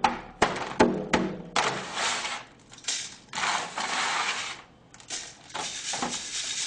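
Three quick hammer blows about a third of a second apart, breaking up clods of dry soil in a metal tray. They are followed by longer scraping and rubbing as hands crumble the soil and work it through a number 4 sieve.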